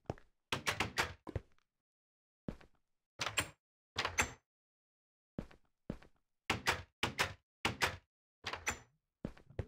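A run of sharp knocks and thuds at an uneven pace, some in quick groups of two or three, broken by a couple of short silent gaps.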